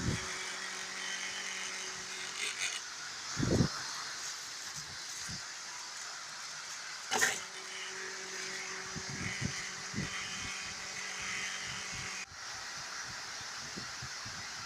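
Renault Megane 3's old heater blower fan, out of the car and powered, running with a steady hum while being shaken, with thumps and knocks from the handling and a sharp knock about seven seconds in. Shaking brings out the buzzing and crackling that the faulty fan made under the dashboard. The hum cuts off about twelve seconds in.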